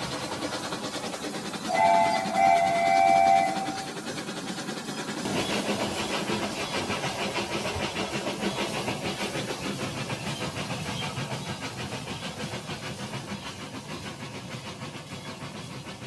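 Toy trains running on model track with a rapid, rhythmic wheel clatter. About two seconds in, a toy locomotive sounds a steady whistle for about two seconds; from about five seconds a second train's clatter grows louder, then slowly fades.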